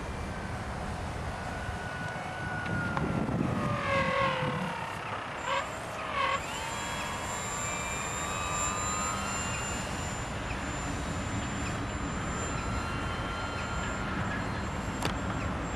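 Electric motor and propeller of an RC Blizzard motor glider whining over steady background noise, its pitch falling and rising as the throttle changes during a landing approach, with two short louder sweeps a few seconds in before settling to a fainter steady whine.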